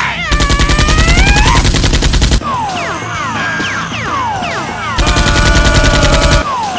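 Machine-gun sound effect firing in two long bursts, the first lasting about two seconds and the second, about five seconds in, about a second and a half, over background music.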